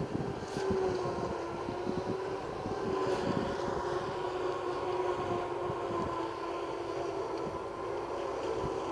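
Forage harvester running while cutting corn for silage: a steady droning hum with a held whine. Wind rumbles on the microphone throughout.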